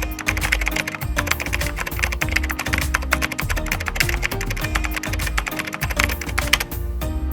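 Outro music with held bass notes and rapid, dense clicking percussion.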